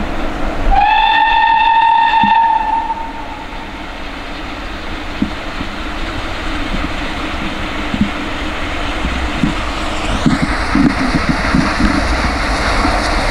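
Southern Railway Schools class 4-4-0 steam locomotive No. 926 Repton sounds one whistle blast of about two seconds, about a second in. Its exhaust beats follow as it works up the gradient, coming louder and closer together as it nears. A high, thin squeal sets in near the end.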